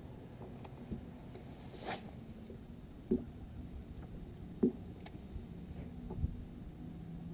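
Electric trolling motor on a bass boat's bow humming low and steady, with a few sharp knocks on the deck and a brief swish about two seconds in.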